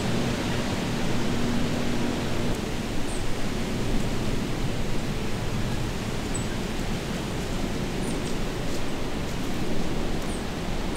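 Steady rushing noise with no pattern, with a few faint, very short high chirps scattered through it.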